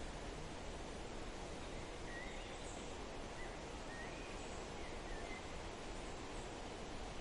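Steady wind through forest trees, with a few faint bird chirps and short whistles over it in the middle.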